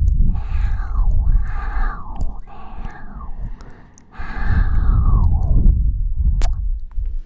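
Breathing close into the microphone: several slow, breathy exhales, each falling away, with a heavy low rumble of breath hitting the mic. There is a single sharp mouth click about six seconds in.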